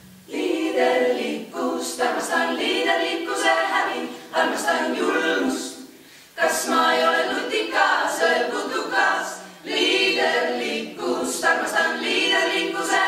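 A group of voices singing together unaccompanied, in phrases broken by short pauses, the longest about six seconds in.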